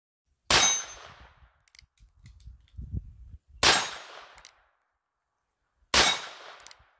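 Three shots from an Uberti 1871 Navy single-action revolver chambered in .38 Special, about three seconds and then two seconds apart. Each is a sharp crack that dies away over about a second.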